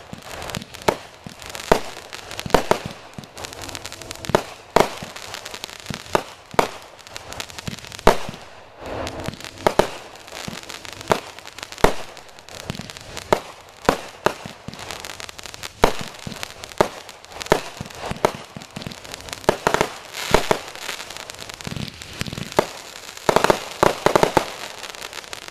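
Consumer fireworks going off: sharp bangs in quick succession, a little more than one a second, with bursts of crackling near the end.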